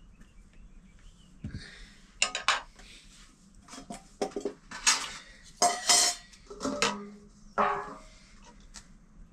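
Metal pots, plates and utensils clattering and clinking: a quick string of knocks and clanks, some ringing briefly, busiest and loudest about halfway through and dying away near the end.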